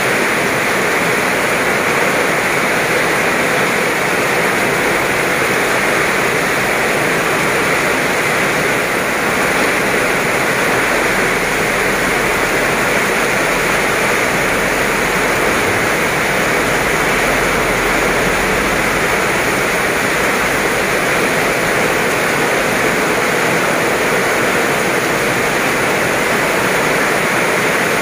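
Heavy rain pouring down onto a road and grass verge: a loud, steady hiss of the downpour.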